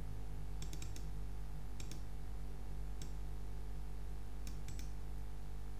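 Computer mouse and keyboard clicks in small clusters of two or three, over a steady low electrical hum.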